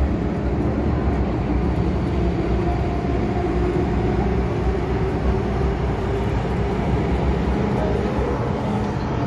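MTR Tsuen Wan Line M-Train (Metro-Cammell EMU) running through a tunnel, heard from inside the carriage. The wheels and running gear make a steady low noise on the rails.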